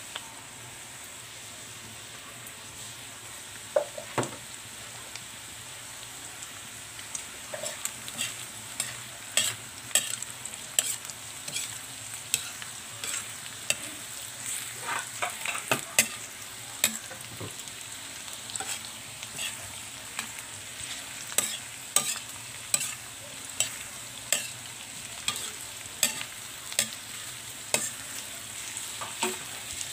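Bitter gourd, egg and tempura stir-frying in a pan: a steady sizzle, with scrapes and clinks of a metal turner against the pan. The scrapes begin about four seconds in and come thick and fast from about seven seconds.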